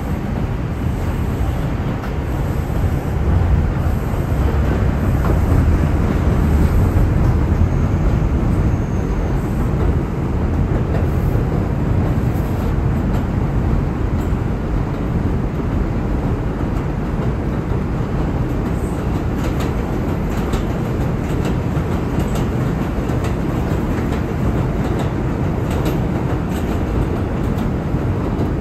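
R142 subway car running on elevated track, heard from inside the car: a steady, loud rumble of wheels and running gear, heaviest a few seconds in, with scattered clicks of the wheels over rail joints in the second half.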